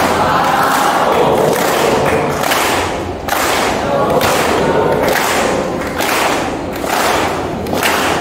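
A large group of young voices chanting and singing a cheer together, with clapping on a steady beat.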